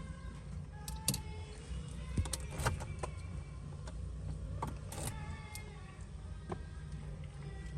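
Keys jangling and a series of sharp clicks inside a Ford Fiesta that will not start, over a low steady hum.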